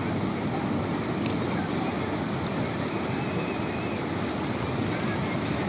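Ocean surf on a beach: waves breaking and washing in as a steady, unbroken rush of noise.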